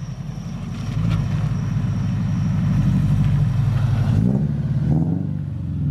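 Scion FR-S's FA20 flat-four running through a newly fitted unequal-length (UEL) header as the car drives past. The engine note swells about a second in, is loudest around three to four seconds, then its pitch drops as it goes by.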